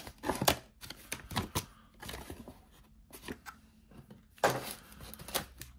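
Paper and cardboard packaging being handled: scattered rustles, light taps and scrapes, with a louder rustle about four and a half seconds in.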